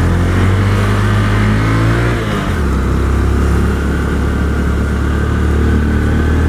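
Motorcycle's single-cylinder 150 cc engine (Honda New Mega Pro) heard from the rider's seat, accelerating with its pitch climbing, then falling abruptly about two and a half seconds in and running steady, over wind noise on the helmet camera.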